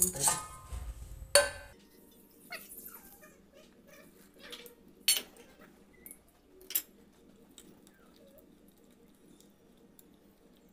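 A steel ladle clinking and scraping against a stainless steel pot as thick semolina batter is stirred: a few sharp metallic clinks, the loudest about a second and a half in, then two more about five and six and a half seconds in.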